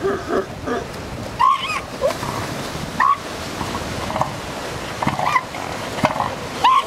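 Elephant seal colony calls: short yelping calls that rise and fall in pitch, one every second or two, over a steady wash of surf.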